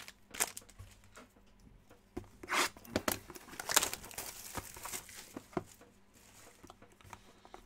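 Clear plastic shrink-wrap being torn and crumpled off a sealed cardboard trading-card box: a run of crackling, tearing rustles, loudest about two and a half to four seconds in. Then a few light knocks as the box is handled.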